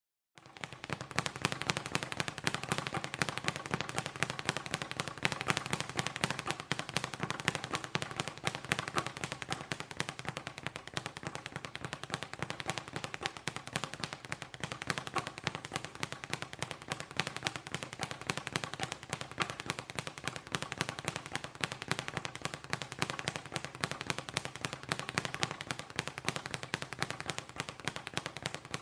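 Rapid, continuous boxing punches landing, many hits a second without a break, starting about half a second in.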